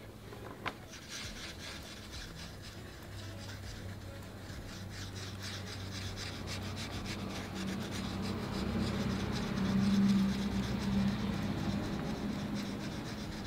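Oil pastel stick, a Caran d'Ache Neopastel, scrubbed hard in small circles on smooth Bristol board paper: a continuous dry rubbing and scratching made of many quick strokes. It gets louder about two-thirds of the way through.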